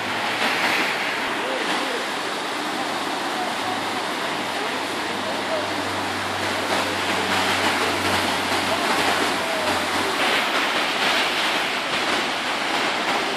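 Flooded river after heavy rain rushing and churning through its concrete channel under a bridge: a steady, unbroken noise of fast floodwater.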